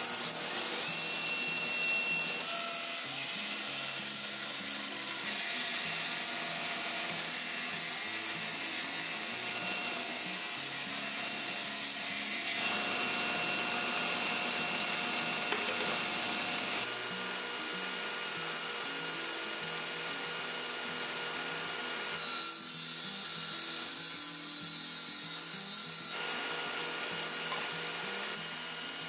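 Table saw coming up to speed at the start, then running steadily while wooden wagon-spoke blanks are fed through the blade.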